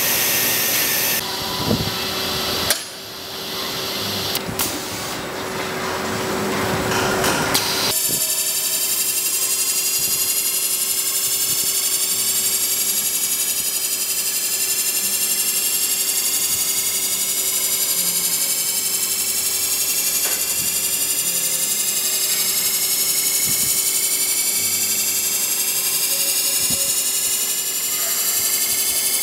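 Centerless grinder and its automatic workpiece loading system running: a few seconds of hissing and clunking, then from about eight seconds in a steady hum with a high whine that slowly rises in pitch.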